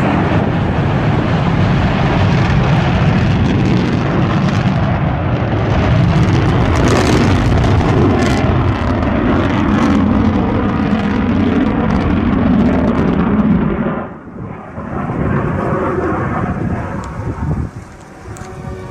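Rocket engine roar: a loud, deep, continuous rumble that breaks off abruptly about 14 seconds in, then returns somewhat quieter.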